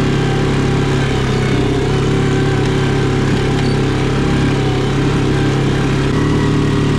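ATV engine running steadily while riding along a dirt track, its note stepping slightly higher about six seconds in.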